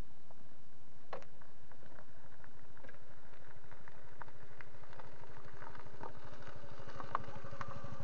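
Motorcycle engine idling steadily with an even low pulse, with a few light clicks over it.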